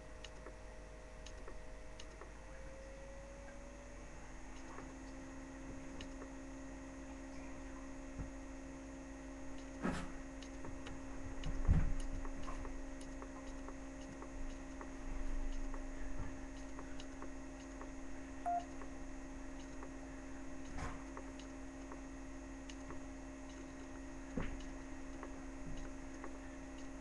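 Steady electrical hum made of a few fixed tones, with a lower tone joining a few seconds in, and scattered faint clicks and knocks, the loudest a dull thump a little before halfway.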